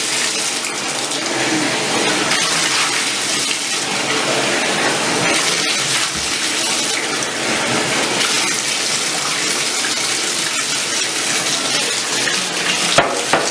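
Water running steadily into a bathtub from the tap or shower, splashing on the tub and the wet puppy being washed. Two sharp knocks about a second before the end.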